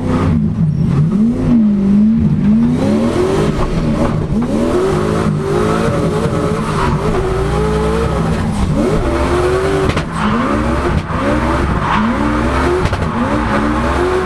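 Turbocharged Toyota 1UZ-FE V8 in a drifting Nissan 200SX S14, its pitch rising and falling again and again as the throttle is worked, with tyres squealing, heard from inside the cabin.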